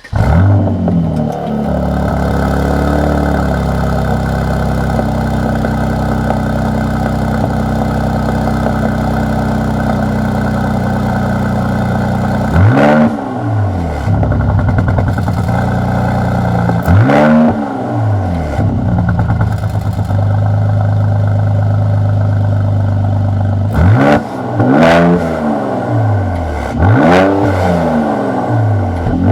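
Mercedes-AMG C43's 3.0-litre V6 starting through its stock AMG sports exhaust in its noisiest setting: it fires with a flare, settles into a steady high idle, then is revved in short blips, two about halfway and several more close together near the end.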